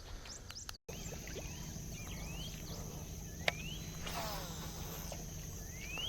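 Swamp ambience: a steady high insect buzz under short rising bird chirps, with a low steady hum and a sharp click about three and a half seconds in.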